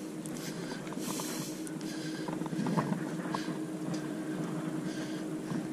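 Faint rustles and scattered small clicks from hands handling a fishing line, over a steady low hum.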